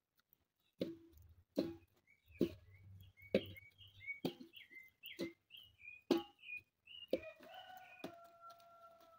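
A knife chopping raw yam into pieces on a woven tray, a sharp knock about once a second. Birds chirp in quick high notes in the background, and a steady whistled note comes in near the end.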